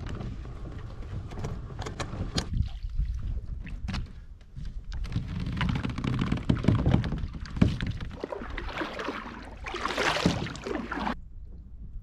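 Lifetime Yukon plastic fishing kayak scraping as it is dragged over a dirt track, then paddle strokes in the water with knocks against the hull, in irregular bursts that cut off suddenly near the end.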